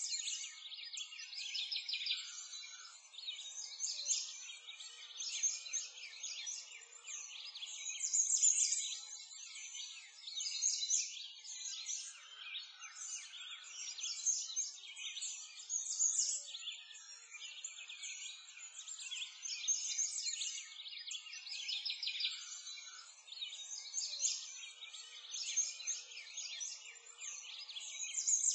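A dense chorus of small birds chirping and twittering without pause.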